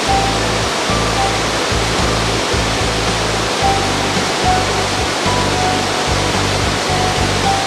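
Waterfall, a steady rush of falling water, with background music of low sustained notes playing over it.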